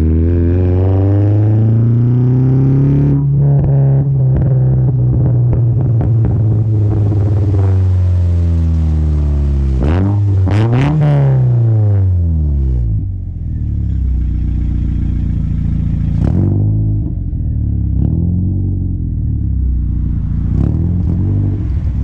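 Mazda MX-5's four-cylinder engine through an unbaffled Malian exhaust, revving up and down under way, with a quick rev blip and crackles about ten seconds in. It then settles to a lower, steadier run, with sharp pops on throttle blips near the end.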